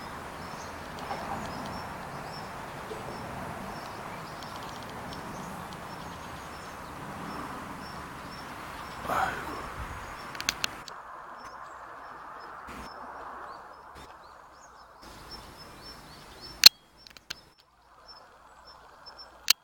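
Outdoor background noise with faint, repeated short chirps of small birds. Two sharp clicks near the end are the loudest sounds.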